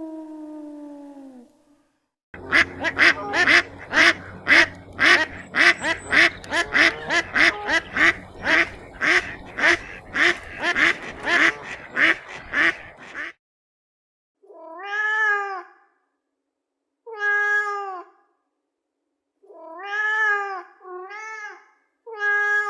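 A falling howl fades out, then a cat meows rapidly over and over, about two cries a second, for some ten seconds. After a pause come several separate, longer meows a couple of seconds apart.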